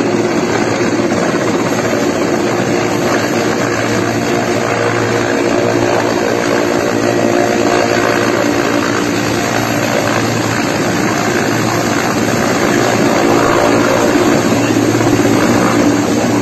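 Large military transport helicopter coming in low to land on a helipad, its main rotor and turbines making a steady, loud noise that grows a little louder near the end as it draws nearer, with a second helicopter hovering further off.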